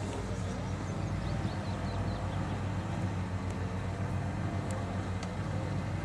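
Remote-controlled tracked flail mower running as it cuts grass: a steady low engine drone with a higher hum above it that wavers slightly in pitch.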